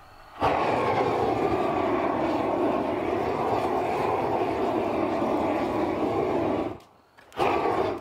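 Bell-headed propane torch burning with a steady rush of flame as it chars trim planks. It starts about half a second in, cuts off for a moment near seven seconds, then flares again briefly at the end.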